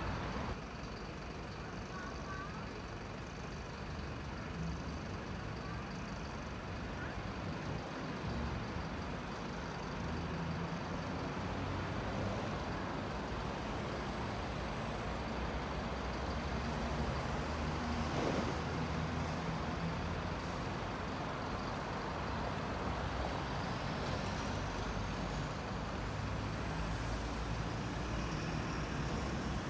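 A heavy vehicle running in street traffic, with a low steady hum. A faint high whine rises in pitch about three-quarters of the way through.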